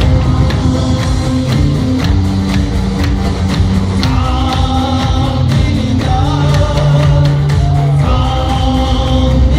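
Live band music with a steady drum beat and bass, and a singing voice carrying the melody from about four seconds in.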